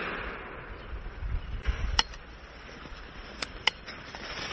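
The report of a .44 calibre big-bore PCP air rifle shot dying away, followed by a few sharp clicks over light rustling.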